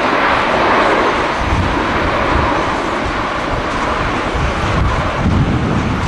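Japan Airlines Boeing 767 jet engines running loud and steady as the airliner rolls along the runway after landing, with wind buffeting the microphone.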